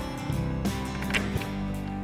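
Background music with plucked acoustic guitar strumming at a steady beat.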